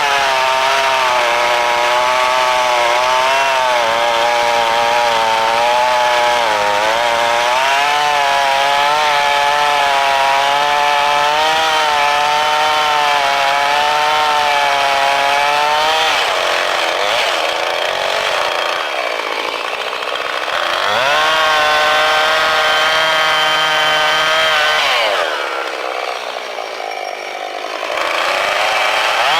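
Gas chainsaw cutting into a log, its engine pitch wavering under the load of the cut. Twice the revs drop and ease off, about two-thirds through and again near the end, before the saw is revved back up.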